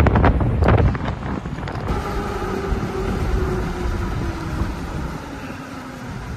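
Strong wind buffeting the microphone in loud gusts for about two seconds. It then cuts abruptly to a quieter, steady rush, with a faint tone slowly falling in pitch.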